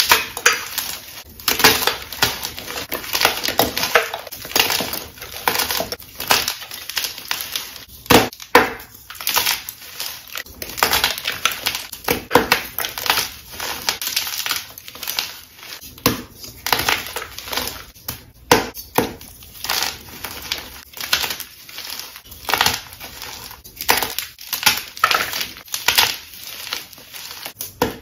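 Soft chalk blocks crushed and crumbled in bare hands: a dense, irregular run of crunches and crumbles.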